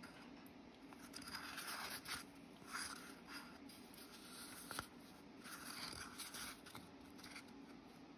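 Wooden stir stick scraping thick resin-cement mix around a paper cup and into a silicone mold: several short, faint scrapes with a few light clicks.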